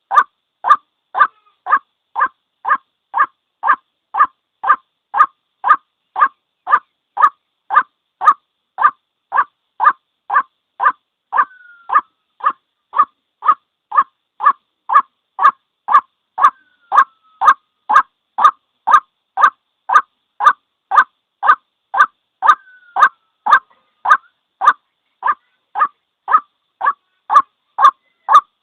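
White-breasted waterhen repeating its single 'ruak' call note in an even, unbroken series, about one and a half notes a second. A few times a faint, short falling note sounds between the calls.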